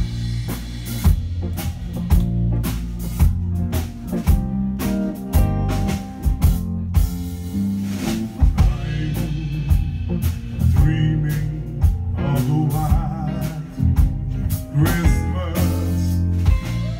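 Live soul band playing: electric guitar, bass guitar and a steady drum beat, with a man's voice singing over it in the second half.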